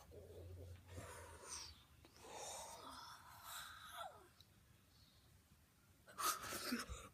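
Faint breathy gasps and sighs from a person's voice, with a louder, sharper gasp near the end.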